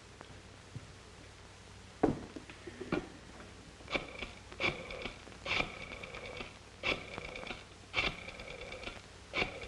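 Telephone handled and dialed: two heavier knocks, then a string of sharp clicks about a second apart, each with a brief metallic ring.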